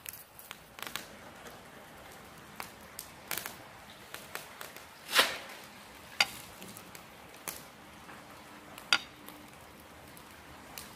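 A metal spoon tapping and scraping on a ceramic plate of ground spices: a few scattered sharp clicks over a low background hiss, the loudest about five seconds in and again a second later.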